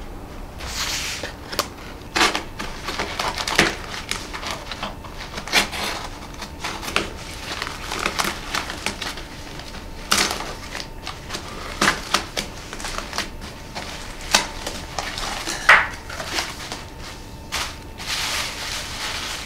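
Cardboard box being unpacked by hand: a blade slitting tape and cardboard, flaps and paper wrapping crinkling, with irregular sharp rips and taps. A longer rustle of tissue paper near the end.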